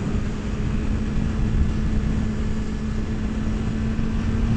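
Motorcycle engine running at a steady cruise, heard from the rider's seat over steady wind rumble on the microphone.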